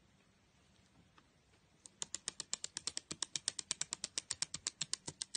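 White-bellied caique's feet tapping rapidly on a wooden floor as it hops in place: a quick, even run of sharp clicks, about eight a second, starting about two seconds in.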